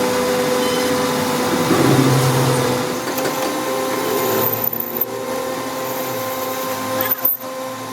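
A power tool or workshop machine running steadily with a constant whine, dropping out briefly about seven seconds in.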